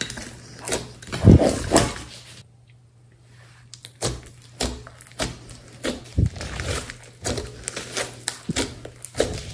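Hands squishing and kneading a large mass of slime: wet squelches and sticky popping and clicking as the slime is pressed and pulled. The loudest squelch comes just after a second in; after a brief lull near the third second, a quick run of small crackly pops follows.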